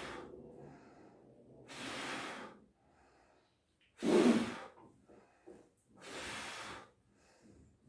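Forceful breaths blown out through the mouth, a hissing exhale about every two seconds, four in all. The one about four seconds in is the loudest and carries a slight voiced grunt.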